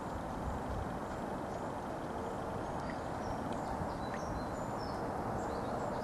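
Steady outdoor ambient noise, an even low rumble and hiss, with a few faint high chirps in the middle.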